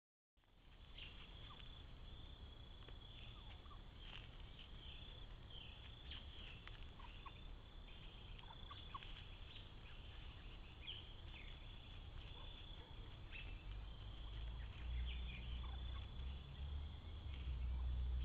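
A flock of wild turkeys feeding, with many short, high-pitched calls throughout. A low rumble grows louder toward the end.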